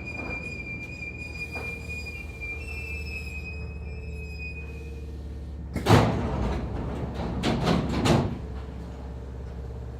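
Hankyu 3300 series commuter car at a station stop, its low equipment hum underneath a thin high squeal that fades out. About six seconds in, the car's sliding doors move with a sudden loud bang, followed by a second burst of door noise about a second and a half later.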